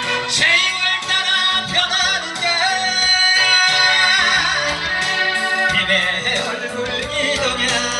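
A trot song being sung with wavering vibrato on the held notes, over a band accompaniment with guitar.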